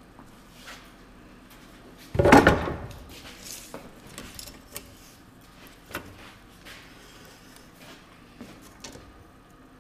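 A sudden loud clatter about two seconds in, dying away within a second, then light clicks and rustling as a tape measure is run along a wooden board.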